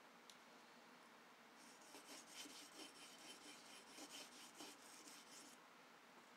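Faint, quick strokes of a steel knife blade rubbing across an oiled sharpening stone, about two strokes a second for some four seconds, starting a second and a half in. The second side of the edge is being honed to push the burr over.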